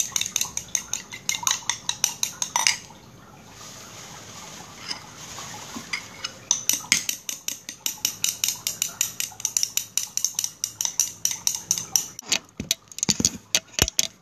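A utensil stirring a thickening gel mixture in a bowl, clicking against the sides about four times a second. The stirring pauses for a few seconds near the start, then resumes, and ends with a few slower taps.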